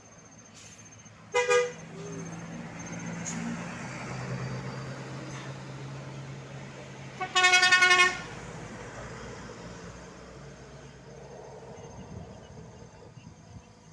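A tour bus's telolet-style air horn sounds two blasts, a short one and then, about six seconds later, a longer, lower one, over the low drone of the bus engine passing and fading away.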